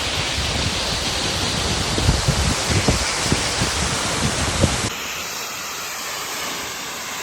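Steady rush of falling water at Seneca Falls waterfall, with irregular low thumps over it. About five seconds in, it cuts abruptly to a quieter, steadier water hiss.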